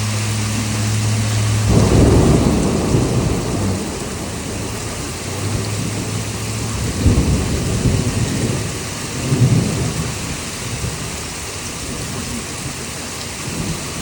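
Thunder rumbling, starting loud about two seconds in and swelling again twice, around seven and nine and a half seconds, over the steady hiss of heavy rain.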